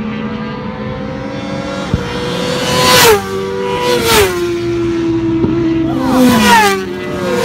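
Petrol racing motorcycles at high revs on a race track go past close by one after another. Each engine note swells and then drops in pitch as a bike passes: about three seconds in, again a second later, and twice more near the end.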